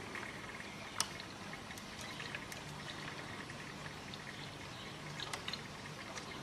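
Märklin H0 model train running on K-track rails: a steady hissing running noise with a faint low hum and scattered light clicks, one sharper click about a second in.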